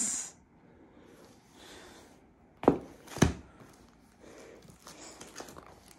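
Two light knocks about half a second apart as long cardboard diamond-painting kit boxes are set down on a table. Low room sound otherwise.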